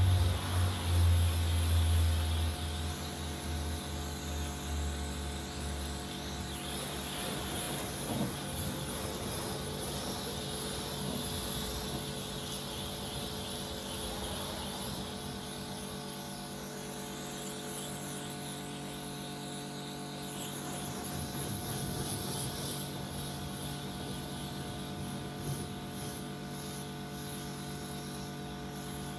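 Karcher K4 pressure washer running, its motor and pump giving a steady hum under the hiss of the water jet spraying onto a car. The low hum is strongest for the first few seconds, then settles.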